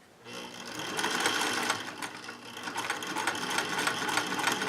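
Singer Touch and Sew sewing machine starting up about a quarter of a second in and stitching with a fast, even clatter of needle strokes. It eases off for a moment a little past halfway, then speeds up again.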